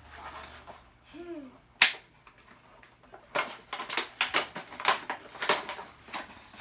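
Toy packaging being pulled apart by hand: one loud sharp snap, then a quick run of crackling clicks as the wrapped-in toy engine is worked free.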